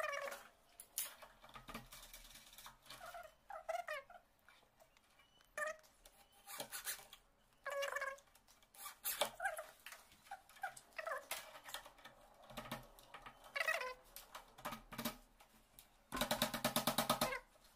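Fast-forwarded sounds of fitting a lock handle to a wooden door: a string of short clicks and brief high chirps, then a dense, fast rattling buzz near the end.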